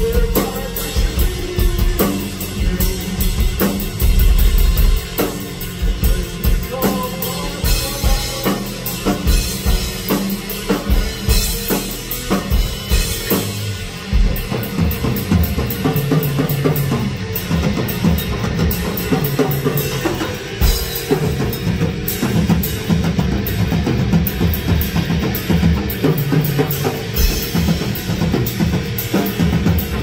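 Live progressive rock band playing loudly, with a drum kit's bass drum and snare hits driving under Chapman Stick and touch guitar.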